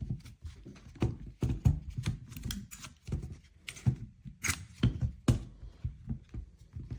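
Irregular clicks, taps and rustling of small objects being handled close to the microphone, several sharp clicks a second with short pauses between.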